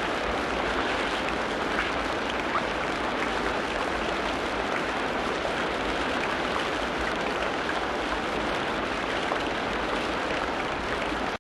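Steady rain falling, a dense, even patter with a few sharper drop ticks.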